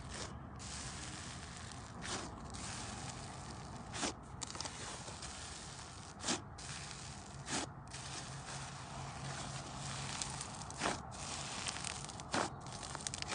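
Thick, textured slime being pressed flat and kneaded by hand: a steady hissing, squishy sound with a louder squish every one to three seconds.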